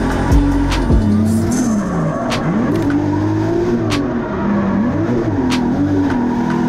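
Turbocharged 2JZ inline-six of a Nissan S14 drift car heard from inside the cabin, revving up and down again and again under hard driving. A few sharp clicks cut through the engine note.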